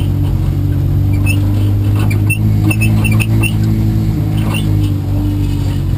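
Car engine running steadily at a near-constant pitch, with a few short, high squeaks between about one and three and a half seconds in.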